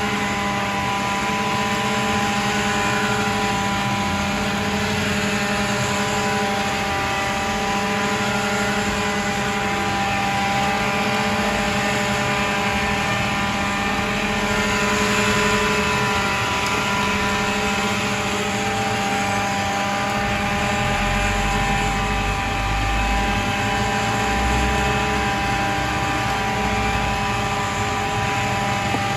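Steady machine drone of a running motor, holding several constant pitches over an even hiss; a deeper low rumble joins about two-thirds of the way through.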